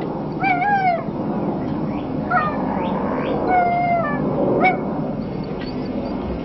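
Alaskan Malamute puppy whining: about five high, thin whimpers, two of them longer and bending in pitch, the rest short, over the first five seconds.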